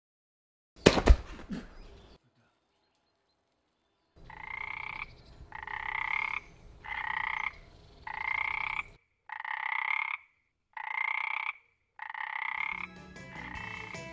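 A loud sudden impact about a second in. After a pause come seven evenly spaced frog-like croaks, each just under a second long with a slight upward lift, from a man imitating a frog.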